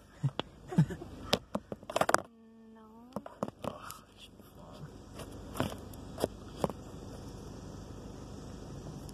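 Handling noise from a phone being moved and set in place: a quick string of clicks and knocks, then a short low tone about two seconds in. A steady hiss then fills the car cabin, with a few more taps, and a loud knock comes at the very end.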